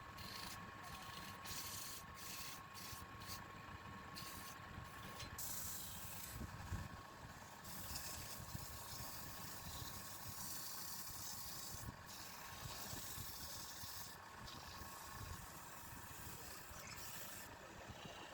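Woodturning lathe running with a steady motor whine while a turning tool cuts the spinning wood. The cut makes a hiss, first in short strokes and then in one longer cut from about five seconds in to about twelve seconds.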